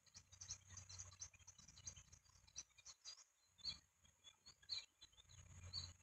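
Faint, short, high peeps of downy eaglets begging, and soft rustling clicks in the nest as the adult eagle tears food for them. A low rumble comes and goes underneath.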